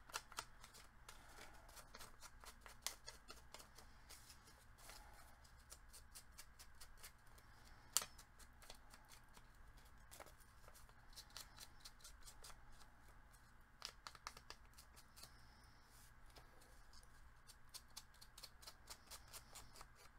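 Faint dabbing and rubbing of an ink-blending tool's foam pad on paper: many small quick taps with one sharper tap about eight seconds in, over a faint low hum.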